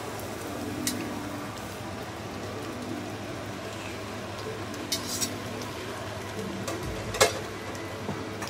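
Crepe being made: a steady hiss, with a few light clicks and taps of utensils and one sharper clack about seven seconds in.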